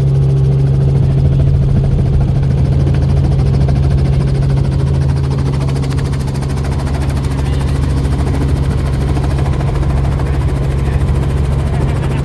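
Tour helicopter's engine and rotor running, a loud steady drone with a low hum.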